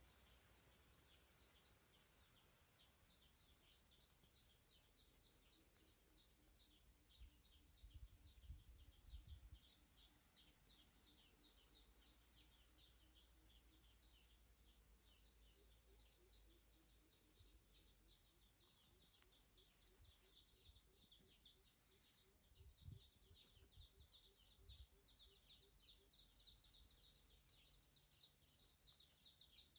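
Near-silent ambience with faint, rapid high-pitched chirping, about four chirps a second, and a few soft low thumps about eight seconds in and again past twenty seconds.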